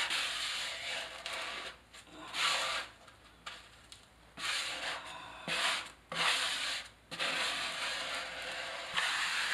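Plastic drywall spatula scraping over Hydro Ban sheet membrane in repeated strokes with short pauses between them. It is smoothing the membrane down into the mortar bed and pushing out air pockets.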